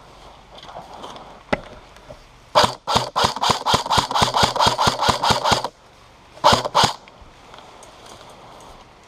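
Airsoft gun firing a rapid string of shots, about six a second for some three seconds, then a short burst of about three a second later. A single shot comes earlier.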